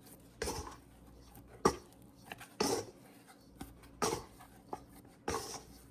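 Very wet, sticky no-knead bread dough being grabbed and folded up from the edges of a mixing bowl: five short strokes about a second apart, one with a sharp click near the middle.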